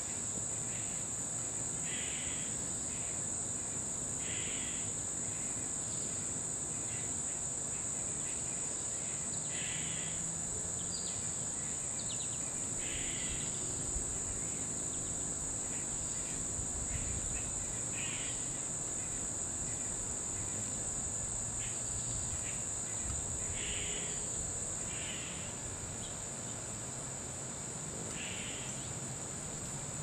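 A steady, high-pitched drone of insects calling, with short harsh calls breaking in every few seconds.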